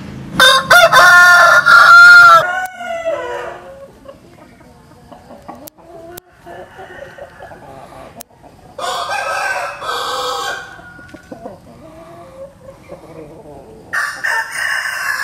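A rooster crowing: one loud, long crow starts about half a second in and lasts about two seconds, a softer crow comes near the middle and another begins near the end, with quiet low clucks between.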